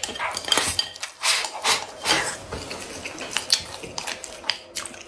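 Eating utensils clinking and scraping against a bowl during a meal: many small sharp clicks, with a few short scrapes in the first couple of seconds.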